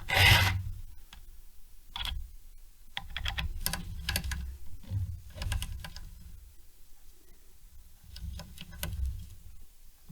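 A last stroke of a file on a saw-chain cutter, then scattered light metallic clicks and taps in small clusters as the chain and file are handled.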